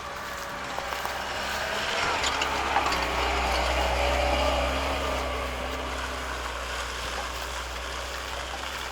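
A car engine passing: it grows louder over the first few seconds, peaks around the middle, then fades away.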